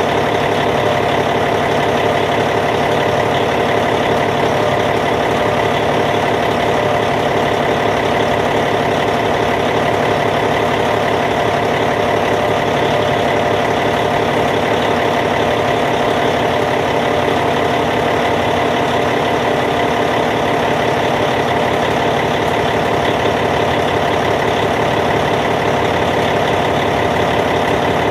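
Caterpillar C15 six-cylinder diesel engine of a Cat D8T dozer idling steadily, with an even, unchanging note.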